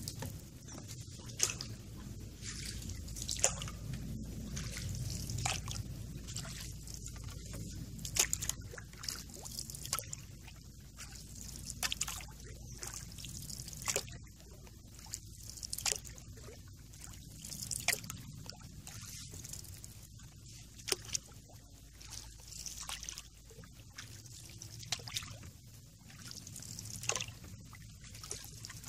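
Water dripping and trickling around a canoe: irregular single drips and small splashes, about one or two a second, over a low steady rumble.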